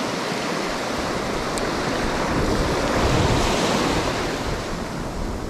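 Sea surf breaking and washing up a sandy beach: a steady rushing wash that swells to its loudest about three seconds in, then eases off.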